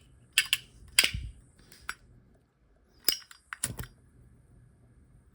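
Chrome Zippo lighter lid snapping open and shut on its hinge: sharp metallic clicks, about five of them, the clearest about a second in and near the middle, with a quick double click just after.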